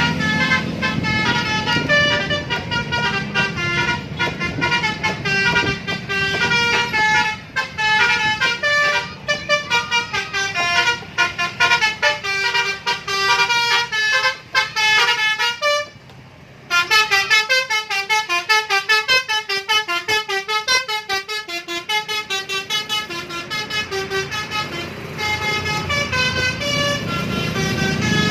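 Bus 'telolet' horn: a multi-tone musical air horn playing quick tune-like runs of pitched toots, breaking off briefly a little over halfway through and then starting again. A low engine rumble runs underneath near the start and the end.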